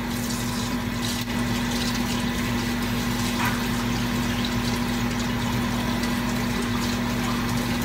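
Kitchen tap running as hands are washed under it, over a steady low hum.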